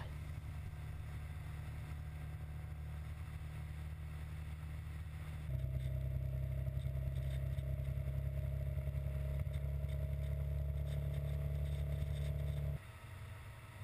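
Honda XR650L's single-cylinder engine running steadily at highway cruising speed, a low even hum heard from a camera on the bike. It steps up louder about five seconds in and drops off suddenly near the end.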